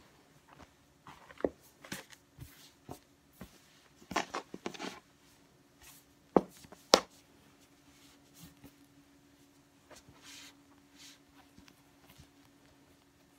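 A crinkled shibori obiage rustling and shifting as it is folded and gathered by hand on a wooden table. Three sharp knocks of hands against the tabletop stand out, one about a second and a half in and two close together around six and seven seconds.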